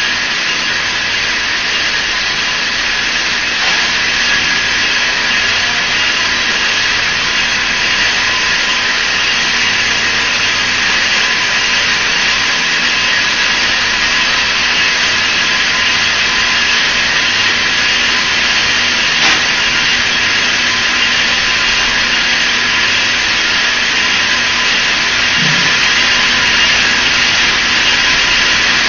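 Hexagonal wire netting machine running with a steady, even whir and hiss and a faint constant hum, with no distinct knocks or beat.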